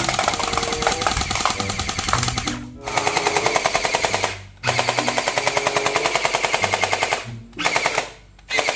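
Electric gel-ball blaster firing on full auto: a rapid rattle of shots in several long bursts, each cut off by a short pause when the trigger is released.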